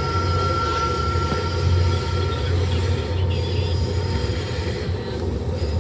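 Metra commuter train rolling slowly, heard from inside a passenger car: a steady low rumble, with a thin, high wheel squeal that fades out about two and a half seconds in.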